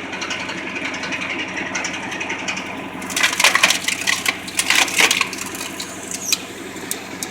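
Homemade tractor PTO-driven log splitter running with the tractor engine humming steadily; from about three seconds in, a log cracks and splinters apart in a rapid run of sharp cracks lasting about two seconds.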